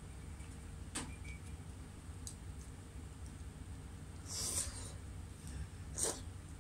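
Eating noises at a table: a few light clicks of chopsticks against a bowl and a short slurp of hot soup about four and a half seconds in, over a low steady hum.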